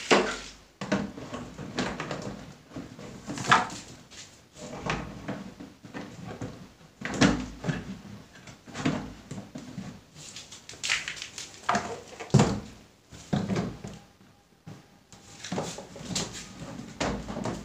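Hard plastic panels of a flat-pack plastic storage cabinet knocking, clattering and clicking as they are handled and pushed into place, in a series of separate knocks a second or two apart.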